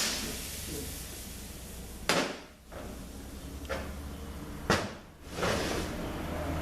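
Two sharp knocks about two and a half seconds apart, as parts of a transmission valve body are handled on the workbench, over a low steady hum.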